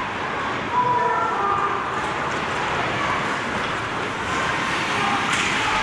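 Ice hockey rink ambience during play: a steady wash of noise in the rink, with a few brief distant calls about a second in.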